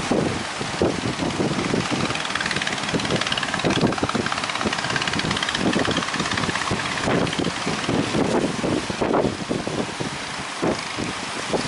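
Strong wind blowing across the microphone: a steady hiss with irregular low buffeting gusts.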